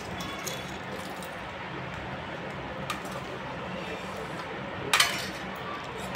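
Steel spoon clinking against steel bowls and plates while pani-puri is filled, with a few small taps and one sharp clink about five seconds in, over a steady low hum.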